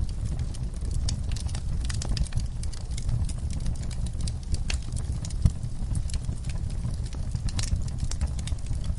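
Wood fire in a fireplace crackling, with irregular sharp pops and snaps over a steady low rumble of the flames; one louder pop about five and a half seconds in.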